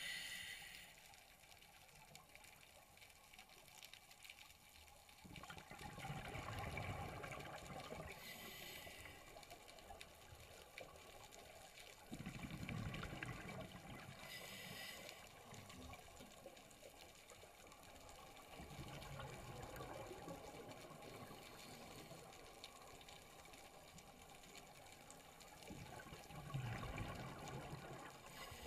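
Scuba regulator breathing heard underwater: short hissing inhalations alternate with longer low bubbling exhalations, several seconds apart.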